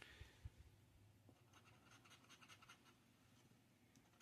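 Faint scratching of a scratch-off lottery ticket's latex coating, in quick repeated strokes.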